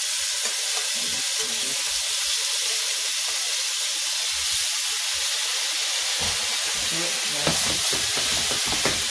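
Fish steaks frying in hot oil in a non-stick pan: a steady loud sizzle as the pieces are laid in one after another. A few light knocks and handling sounds come in the second half.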